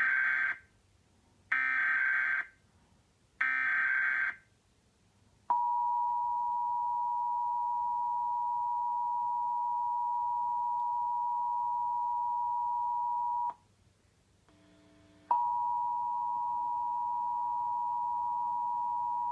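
Emergency Alert System tones from a television, opening a Required Monthly Test: three one-second bursts of screeching SAME header data, then the steady two-tone attention signal for about eight seconds. After a brief gap the two-tone attention signal starts again and runs on to the end.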